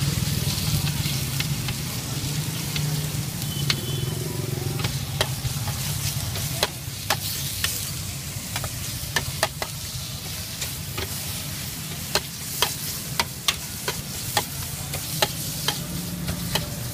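Raw sliced beef sizzling in a hot wok, with a metal spatula scraping and clinking against the wok as it is stirred. The sharp clinks come irregularly from about five seconds in, over a steady low hum.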